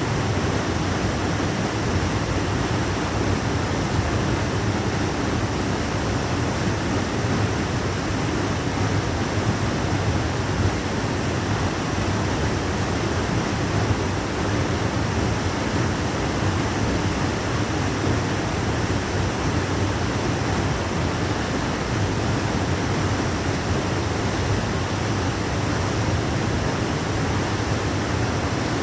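Waterfall: water falling and crashing in a steady, unbroken rush.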